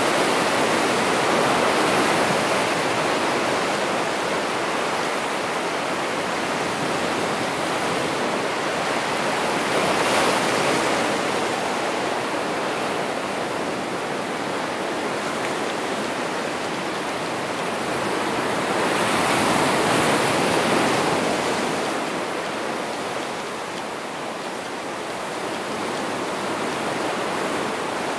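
Ocean surf breaking and washing over rocks along the shore: a continuous rush of water that swells with each incoming wave, loudest about ten seconds in and again around twenty seconds in.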